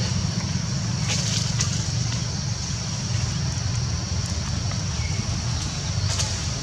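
Steady outdoor background noise: a low rumble with a steady high-pitched hiss above it, and a few faint clicks.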